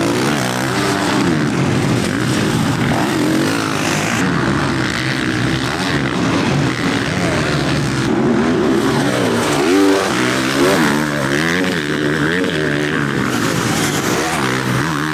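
Several motocross bikes racing, their engines revving up and down with the throttle and gear changes, several engine notes overlapping.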